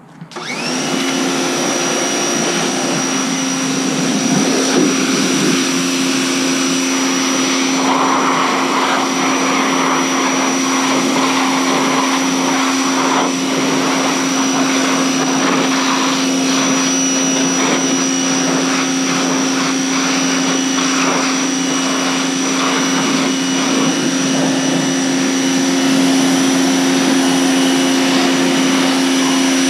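A 2200 PSI pressure washer kicks on suddenly and runs steadily, its pump motor humming with a high whine under the hiss of the water spray.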